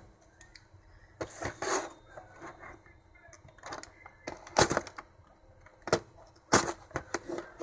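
A cardboard figure box having its tape seal scraped and slit open with a small hand tool instead of scissors, in a series of short, irregular scratchy bursts with handling of the box between them.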